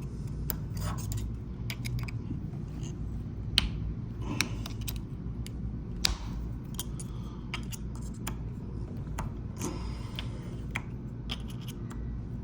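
Cover of a smart-lock deadbolt being pried off by hand: scattered clicks, snaps and short scrapes of the cover and tool against the lock, over a steady low hum.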